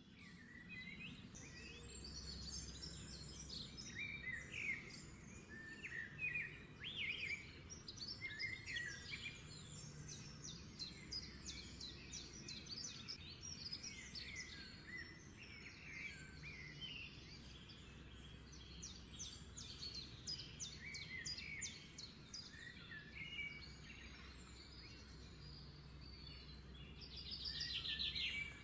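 Many small birds chirping and twittering over a low steady hum. Near the end, a louder dense crackle as sliced onions hit hot oil in the wok and sizzle.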